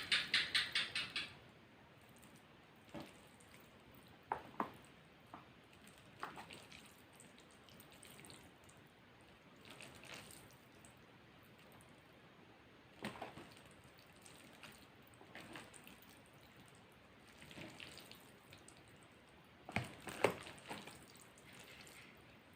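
A person eating close to the microphone: scattered mouth and chewing sounds with short, sharp clicks at irregular intervals. A quick rattling run of taps opens the first second or so.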